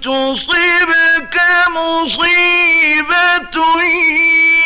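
A man reciting the Quran in the melodic mujawwad style. He holds long, ornamented notes with brief breaks between phrases.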